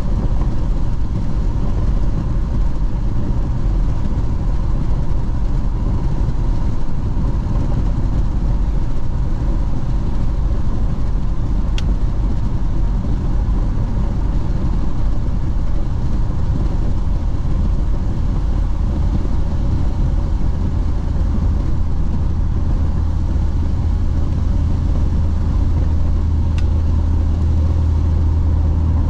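Car driving on a wet highway, heard from inside the cabin: a steady rush of tyre and road noise with the engine's low drone, and two brief clicks. A deeper hum grows louder near the end.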